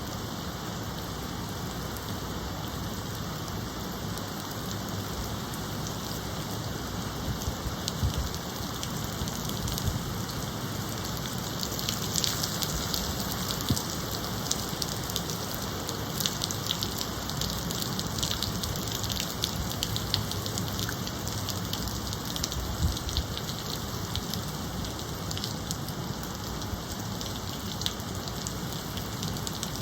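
Steady rain falling and pattering on surfaces, with many individual drops ticking. The patter turns heavier for a few seconds about twelve seconds in, then settles back.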